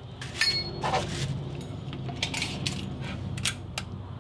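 Clicks and short rattles of a tape measure being picked up and its blade pulled out, with a sink drain fitting handled against it; the loudest clicks come about half a second in and again near the end.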